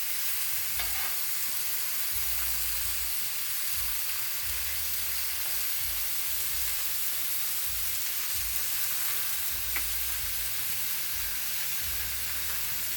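Chicken sizzling on a Blackstone flat-top griddle: a steady frying hiss, with a couple of faint clicks.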